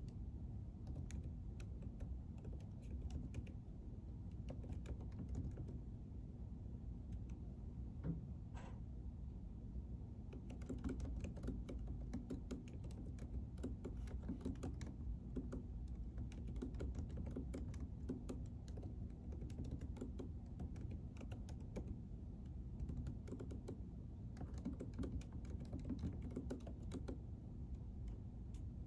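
Typing on a computer keyboard: irregular runs of quick keystroke clicks, busiest from about ten seconds in, over a steady low hum of room noise.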